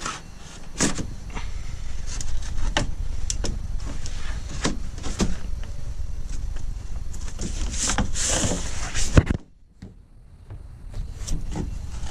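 A cargo ratchet strap being handled: the webbing is pulled and dragged, with irregular clicks and knocks of its metal hook and ratchet over a low rumble. A louder knock comes about nine seconds in, then it goes briefly quiet before the clicking resumes.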